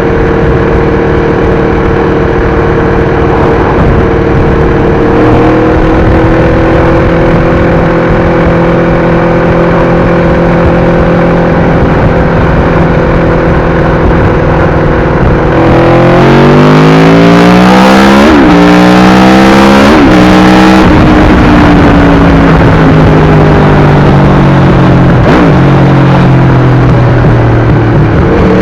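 Aprilia RSV4's V4 engine through an SC-Project exhaust, holding steady revs for about fifteen seconds. It then accelerates hard, the revs rising and dropping sharply at two quick upshifts, before easing off with the revs slowly falling.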